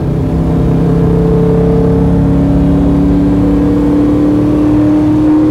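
349-cubic-inch LS V8 (6.2L block with a 4.8L crankshaft) driving a car under steady load, its pitch rising slowly as the car gathers speed.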